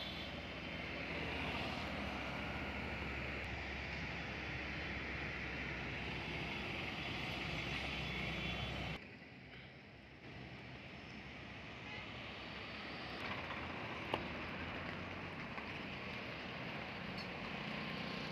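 Roadside highway ambience: traffic passing, with a low rumble under it. The sound drops abruptly about halfway through to a quieter steady hiss, with a single short tick later on.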